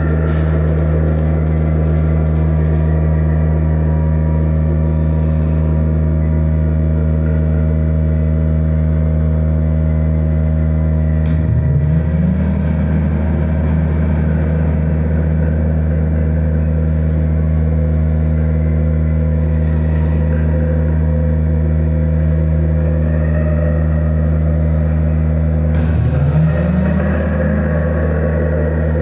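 Sound installation playing a loud, steady low drone of several held tones, with a tone that glides upward twice, about a dozen seconds in and again near the end.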